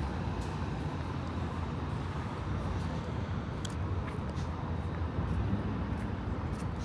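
Steady low rumble of outdoor city ambience, with a few faint ticks scattered through it.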